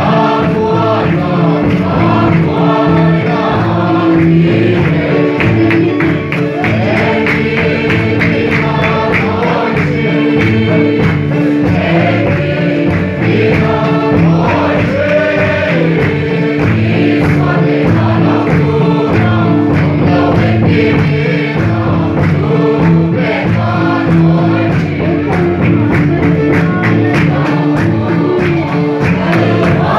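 A packed congregation singing a Mizo hymn together, many voices at once, over a steady percussive beat.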